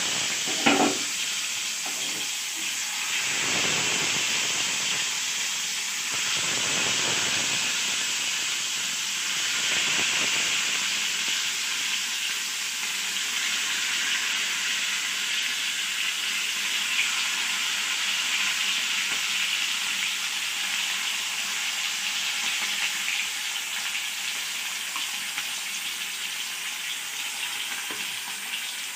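Masala-coated slices of elephant foot yam sizzling steadily as they shallow-fry in hot oil in a pan, with a short sharp knock about a second in.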